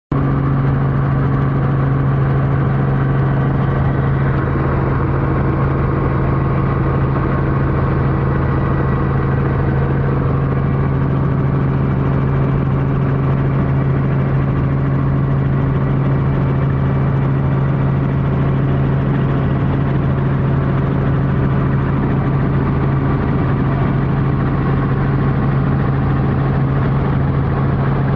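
Robinson R44 helicopter's piston engine and rotors running steadily, heard from inside the cabin as an even deep drone that holds the same pitch throughout.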